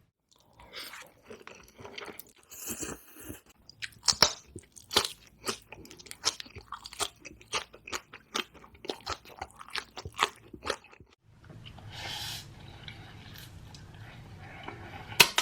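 Close-miked mukbang eating: loud crunching and chewing, with sharp crunchy bites coming about twice a second for several seconds.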